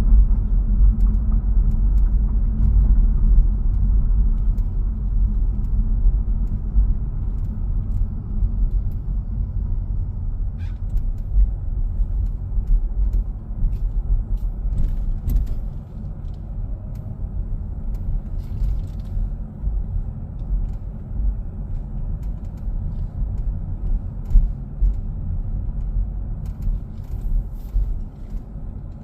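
Steady low road rumble inside the cabin of a moving 2018 Lincoln MKZ Hybrid, with faint, irregular clicks and creaks from around the B-pillar whose cause is unknown to the owner, who suspects the weather stripping.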